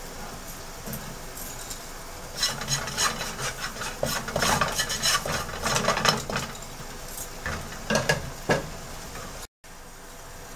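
Spatula stirring and scraping cumin seeds and asafoetida around a nonstick kadai in a little hot oil: a quick run of scrapes that starts about two seconds in and lasts a few seconds. Two sharper knocks of the spatula on the pan follow near the end.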